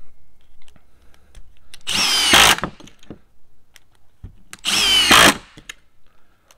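Milwaukee Gen 3 Fuel impact driver on its speed-3 setting driving star-drive screws into a wooden board: two short bursts, each under a second, about three seconds apart. Light clicks come between them as the next screw is set.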